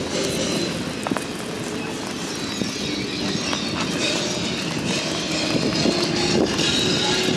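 Steady rushing outdoor ambience of wind and a distant crowd on an open beach.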